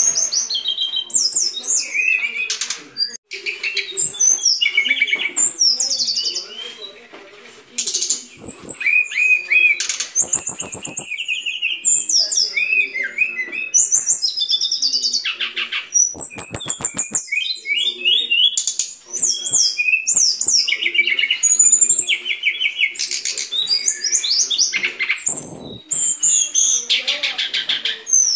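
Brown-chested jungle flycatcher singing a continuous run of fast, varied phrases: high chirps, rapid trills and several buzzy rattles.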